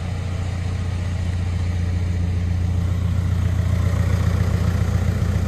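Volkswagen Mk5's engine running at a steady low idle, heard from inside the cabin, as the car creeps in reverse.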